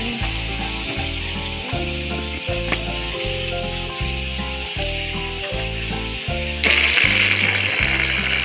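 Background music with a steady beat over the continuous hissing whir of a small electric food chopper mincing onion and garlic. The whir grows louder about two-thirds of the way through.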